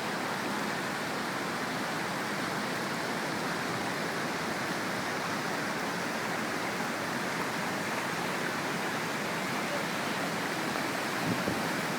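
Floodwater from a hurricane-swollen creek rushing steadily, a dense even roar of moving water. A few brief low bumps near the end.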